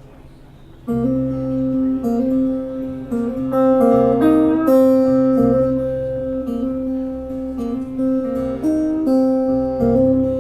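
Acoustic guitar playing the instrumental intro of a song live, ringing chords that change every second or so, coming in about a second in after a quiet moment.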